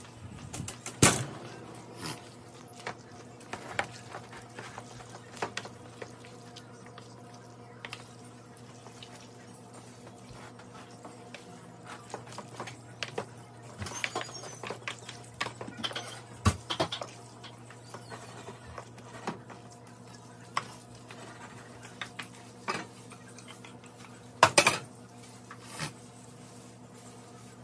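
Tongs stirring macaroni and cheese in a metal steam-table pan: irregular clinks, knocks and scrapes of the utensil against the pan, the loudest knocks about a second in and again near the end.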